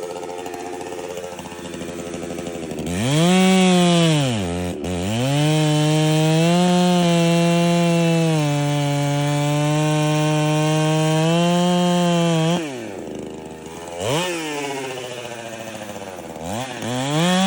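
Two-stroke gas chainsaw idling, then revved up about three seconds in and held at high, steady revs for about nine seconds while it cuts into a wooden stump, with a brief dip in pitch early in the cut. It drops back to idle, is blipped once, and revs up again near the end.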